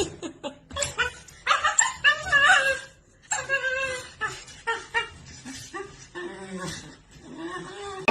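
A dog whining and yipping in several short bouts, its pitch sliding up and down.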